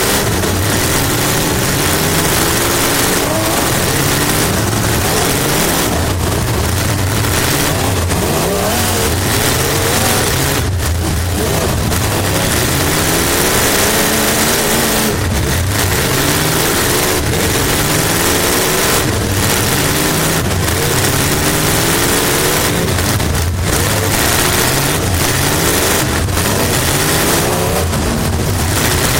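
Race car engine heard from inside the car, revving up and dropping back again and again as the throttle is worked, over a steady rushing noise.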